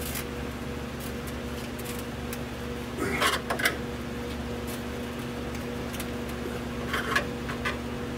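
Metal clips and T-top trim being pried into place: two short clusters of sharp clicks and scrapes, about three seconds in and again about seven seconds in, with a few single ticks between, over a steady hum.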